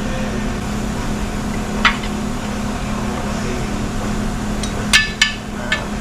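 Sharp metallic clinks of tools and parts striking metal during work on an engine flywheel, one about two seconds in and three close together near the end, each with a short ring. A steady low shop hum runs underneath.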